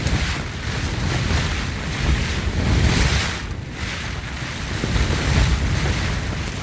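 Strong mountain storm wind gusting across the microphone: a heavy, buffeting rumble with rushing hiss that swells and eases in gusts every couple of seconds.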